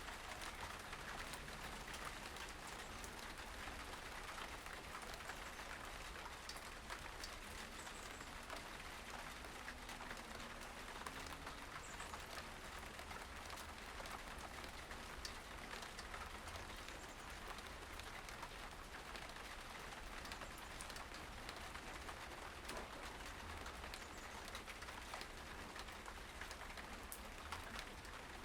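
Faint outdoor ambience: a steady patter like light rain, an even hiss full of tiny ticks, with a couple of brief high bird chirps near the middle.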